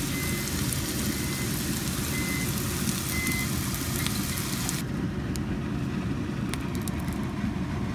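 Frozen mixed vegetables sizzling in butter in a pan over a steady low hum, with four short high beeps about a second apart. About five seconds in the sizzle stops and only the low hum goes on.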